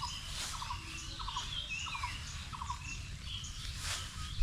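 Birds calling: a short call repeated about every half second, with scattered higher whistled notes and one falling whistle, over a steady low rumble.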